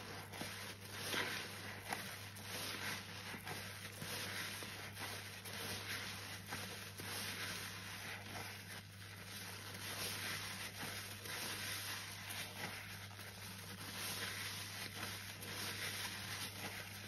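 A soapy sponge squeezed and kneaded over and over in sudsy water by gloved hands: steady wet squelching and crackling foam, thick with tiny pops.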